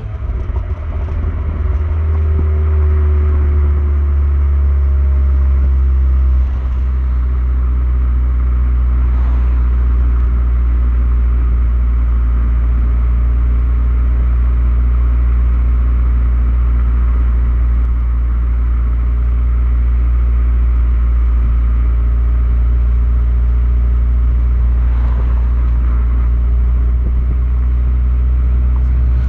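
Renault Megane R26 230's 2.0-litre turbocharged four-cylinder engine running on its standard exhaust, a steady low drone, with a pitched tone falling away in the first few seconds. The engine has the intermittent 'Megane cough', which the owner suspects is an injector fault or a misfire; new injectors have not cured it.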